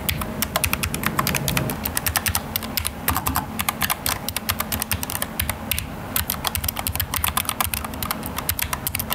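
Fast typing on a Noir Neo Melo low-profile mechanical keyboard with Outemu brown tactile switches: a rapid run of key clacks, the soft "tuk tuk tuk" of these switches, with a couple of brief pauses.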